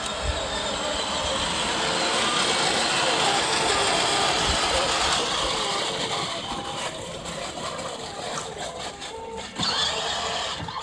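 Battery-powered Barbie Jeep ride-on toy driving across a lawn: its electric drive motor and gearbox running, with the plastic wheels rolling over grass and dead leaves. The noise is steady for the first half and grows more uneven later, with a few short knocks near the end.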